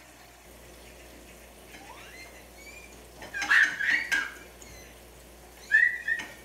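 A toddler's high-pitched squeals and squeaks: a quick cluster about three and a half seconds in, and a longer held squeal near the end.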